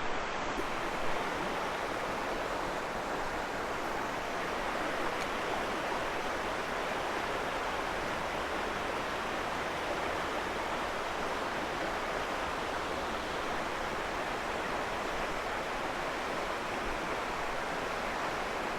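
Fast-moving creek water rushing with a steady, even hiss.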